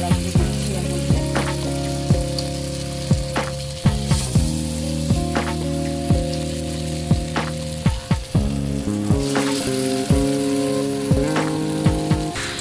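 Chana dal fritter batter frying in hot oil in an iron karahi, a steady sizzle, under background music with changing held chords and a regular beat.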